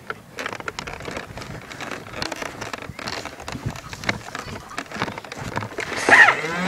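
Scattered crackling clicks and rustling. About six seconds in, a louder sound starts whose pitch wavers and glides.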